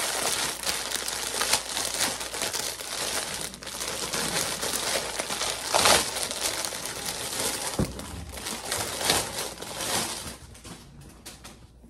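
Plastic packaging crinkling and rustling as items are pulled out of a cardboard box and unwrapped, with louder crinkles about six and nine seconds in, dying down near the end.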